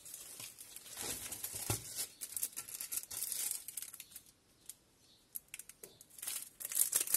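Crinkling and rustling of thin plastic wrapping as a makeup brush is taken out of its sleeve, with small crackles and clicks. It comes in two stretches: about four seconds, a short lull, then more near the end.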